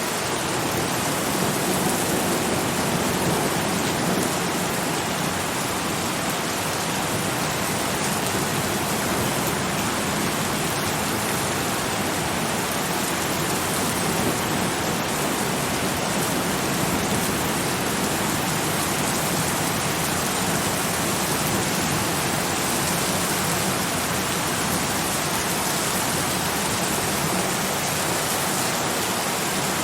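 Steady rain falling as an even, dense hiss, with no distinct drops or thunder standing out.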